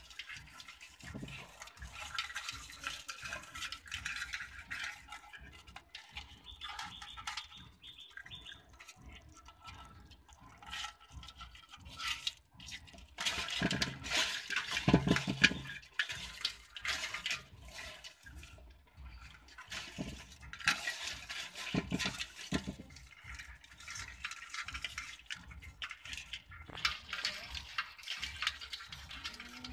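Water splashing and sloshing as a hand rummages among live crabs in a shallow basin, with scattered clicks and scrapes; it is busiest about halfway through.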